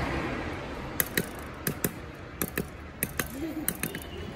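Knife blade chopping and tapping a short piece of bamboo on an iron block: about a dozen sharp clicks, mostly in close pairs, starting about a second in.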